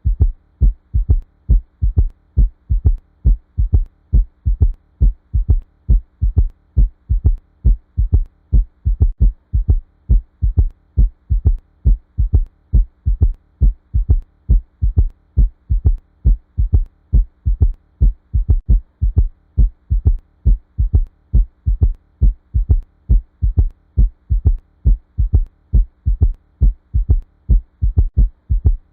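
Auscultated heart sounds with a third heart sound (S3): a steadily repeating lub-dub-ta rhythm of low thuds, the extra 'ta' coming soon after the second sound, just after the mitral and tricuspid valves open. A faint steady hum runs underneath.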